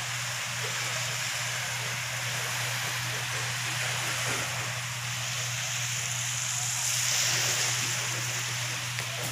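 Steady wash of gentle surf on a sandy beach mixed with wind on the microphone, swelling a little about seven seconds in.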